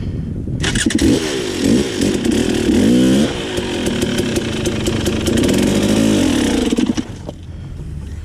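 Dirt bike engine revving hard under load on a rocky climb: the revs rise and fall in quick bursts, are held high for a few seconds, then drop back near the end.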